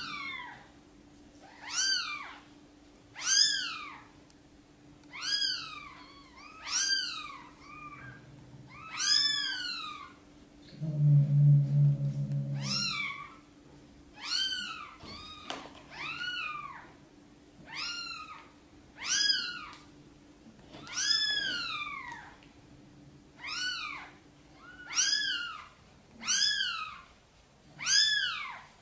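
Newborn kitten crying: a long run of short, high-pitched cries that rise and fall, one every second or two. About eleven seconds in, a louder, low-pitched sound lasts about two seconds.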